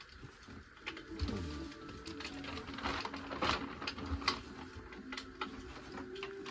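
Plastic sheeting crinkling and rustling under gloved hands, with irregular crackles and clicks that grow busier after about a second.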